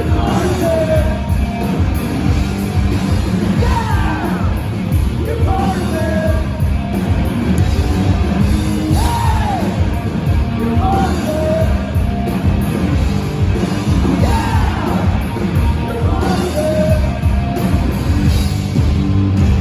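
Live rock band playing loudly, with a voice singing and shouting the vocal line over the full band.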